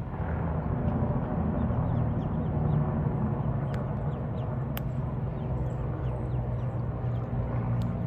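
Mallard ducklings peeping: many short, falling chirps, thicker in the second half. A steady low rumble sits beneath them, and two sharp clicks come near the middle.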